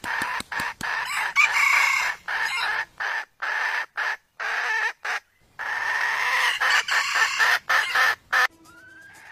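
Red junglefowl (labuyo) rooster crowing loudly, repeated held calls broken by many abrupt cutouts, with a lull in the middle.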